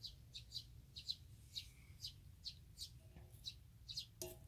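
A small bird chirping over and over outdoors, about two short, high, downward-falling chirps a second. A brief knock sounds near the end.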